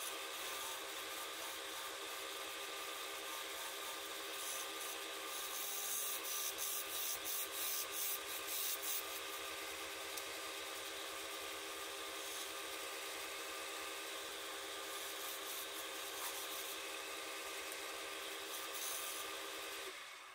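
Wood lathe running steadily while sandpaper is held against the spinning turned wood. There is a series of rhythmic scratchy sanding strokes, about three a second, from about six to nine seconds in.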